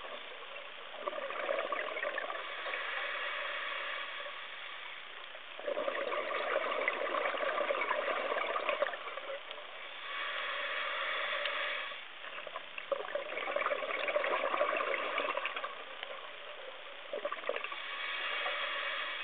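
Scuba regulator breathing underwater: about five bursts of exhaled bubbles gushing for two to three seconds each, with quieter gaps for the inhale between them.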